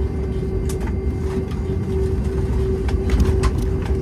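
Cabin noise inside a McDonnell Douglas MD-88 moving slowly on the ground: a steady drone with a constant hum and a low rumble, with a few light clicks and rattles.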